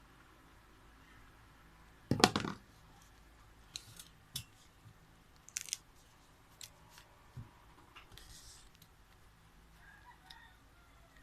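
Scissors snipping paper in short separate cuts, with paper handling; the loudest is a half-second burst of cutting or rustling about two seconds in.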